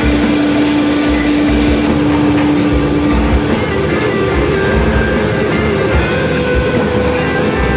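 Background rock music with guitar: one note is held for about the first three and a half seconds, then shorter notes follow.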